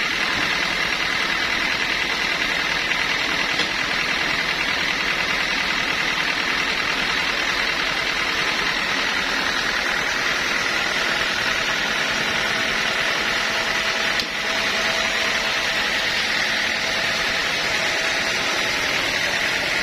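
Sawmill machinery running steadily: a constant mechanical din with a high, steady whine and a brief dip about fourteen seconds in.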